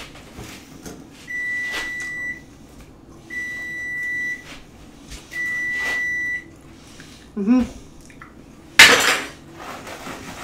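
A kitchen appliance timer beeps three times, each a long, even tone of about a second, two seconds apart. About a second later comes a short falling squeak, then a loud clatter of kitchen utensils on the counter, with a few smaller knocks after.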